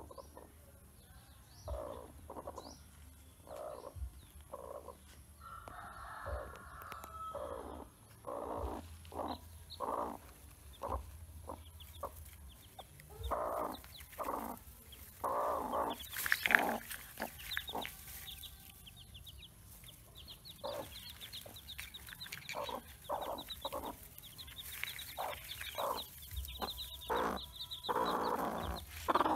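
Broody hen on a nest of hatching eggs, clucking in short low calls about once a second. From about two-thirds of the way through, newly hatched chicks join in with quick, faint, high peeps.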